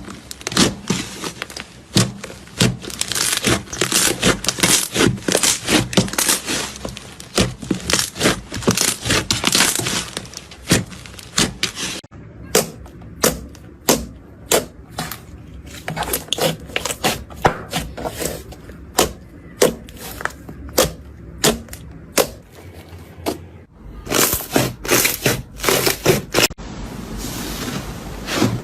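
Slime being squeezed, poked and stretched by hand, giving dense runs of crackling and popping clicks. The sound changes abruptly twice, as one clip gives way to the next.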